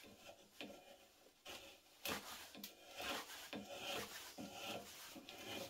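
Swiss Army knife blade whittling a piece of wood: a series of short scraping cuts, sparse at first, then about two strokes a second from about two seconds in.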